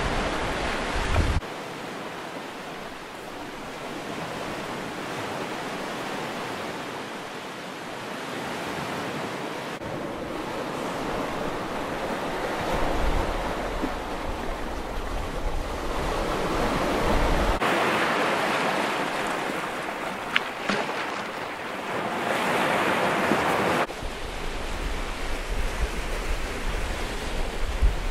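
Sea waves breaking and washing on a rocky, pebbly shore, with wind buffeting the microphone. The surf noise jumps abruptly louder or quieter several times.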